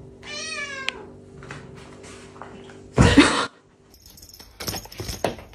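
A cat meows once, the pitch falling, then about three seconds in comes a loud thump, followed near the end by a few short clattering knocks.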